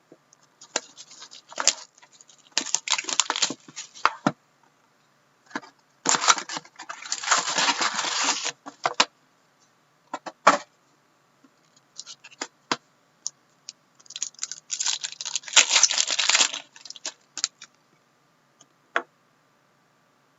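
A box of hockey card packs being torn open and handled: wrappers and packaging ripping and rustling in three main bursts, the longest about three seconds, with scattered clicks and taps between.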